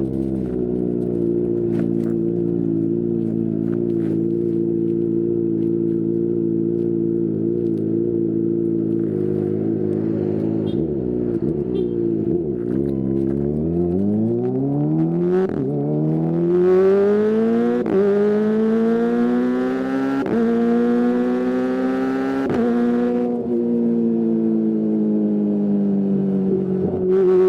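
Kawasaki ZX-25R's 250cc four-cylinder engine running through a DX Generation Pro Race aftermarket exhaust. The engine holds a steady note for about ten seconds, then the revs climb from about halfway, broken by three quick dips, before easing back to a steady note near the end.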